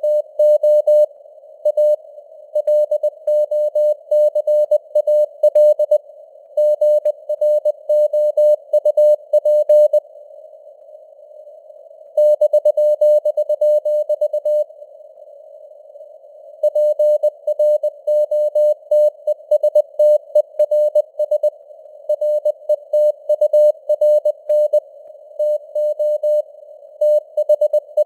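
Morse code sent at 20 words per minute: a single steady tone keyed on and off in dots and dashes, over a band of simulated radio hiss. Two pauses of about two seconds break the sending, about ten and fifteen seconds in.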